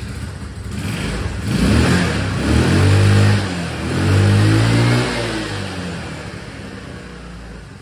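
150cc GY6 four-stroke single-cylinder scooter engine, just started, revved twice with the throttle and then easing back toward idle. The exhaust runs through the muffler with no leak at the cylinder head, after the stripped exhaust studs were replaced.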